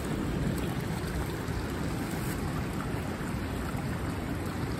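Steady rushing of a fast-flowing woodland creek, with gusty wind rumbling over the microphone.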